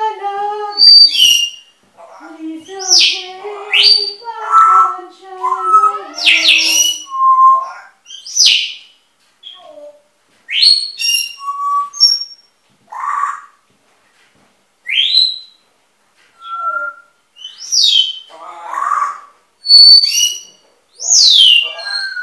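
Caged pet birds chattering: loud whistles, sweeping rising and falling whistled calls and squawks, in short bursts with gaps between them. In the first few seconds there is also lower, mumbling babble.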